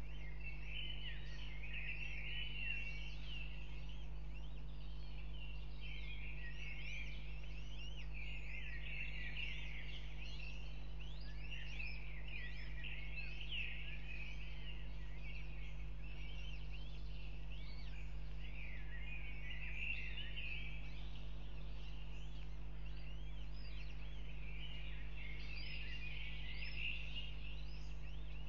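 Northern goshawk nestlings, two days old, cheeping in quick high-pitched bouts as they beg while being fed, over a steady low hum.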